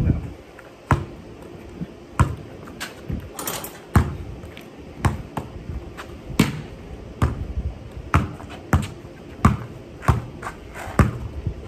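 Basketball being dribbled on a concrete driveway: a string of sharp, irregular bounces, about one to two a second.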